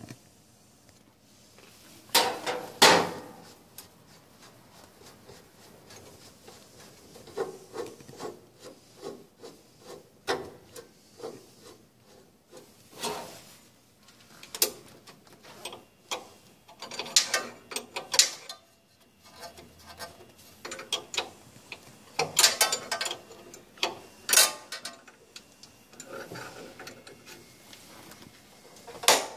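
Hand-tool handling at a router's collet: a spanner knocking, clicking and scraping against metal in irregular, scattered bursts while the router bit is being loosened. The loudest knocks come about two seconds in and again a little past twenty seconds.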